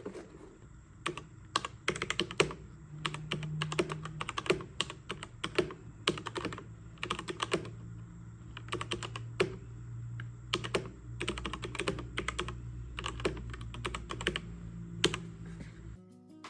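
Typing on an XTRIKE ME GK-995 mechanical keyboard with red linear switches: a fast, irregular run of key clacks with a few louder strokes, over a steady low hum.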